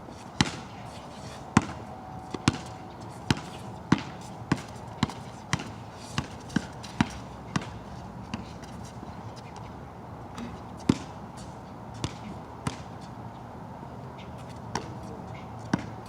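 Basketball bouncing on a wet outdoor court: a steady dribble of about one and a half bounces a second for roughly eight seconds, then scattered single bounces, over a steady hiss of rain.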